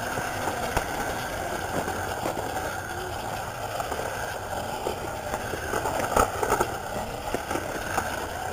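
Razor electric scooter running over a bumpy dirt trail: a steady motor whine over the rattle of its small wheels and frame, with a few knocks from bumps.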